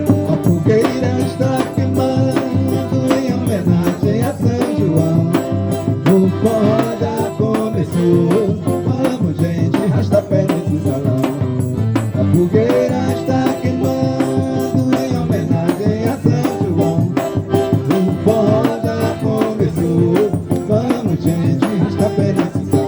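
A forró band playing live: a melody of held, shifting notes over a quick, steady percussion beat.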